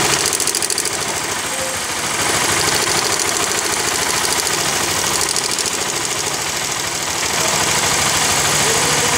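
Honda CBR motorcycle engine idling with a fast, even metallic ticking rattle, the timing chain noise that the mechanic is diagnosing.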